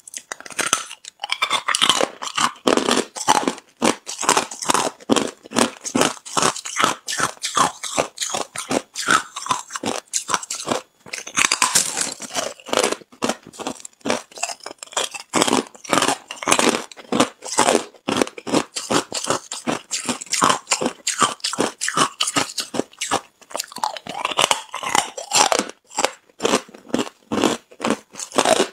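Close-up crunching and chewing of hard ice: rapid cracks of ice breaking between the teeth, almost without let-up, with a brief pause about eleven seconds in.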